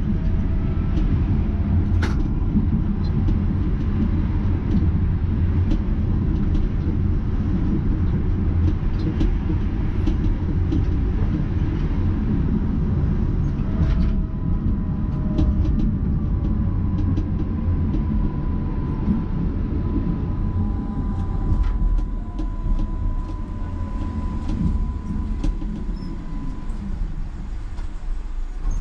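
Budapest tram running along its line: a steady low rumble of wheels on rail with scattered clicks. A whine glides up and down, and a steady high tone comes in about halfway through and stops shortly before the end. It runs a little quieter in the last few seconds.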